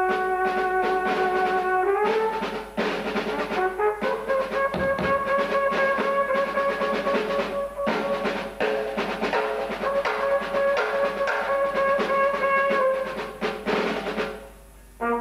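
Free-jazz trumpet holding long sustained notes: one steps up in pitch about two seconds in, and the next is held steadily for most of the rest, over loose drum-kit and cymbal playing. The horn falls quiet shortly before the end.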